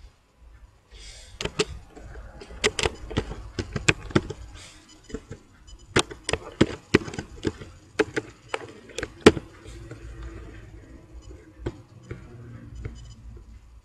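Computer keyboard typing: irregular keystroke clicks in short runs, over a low background hum.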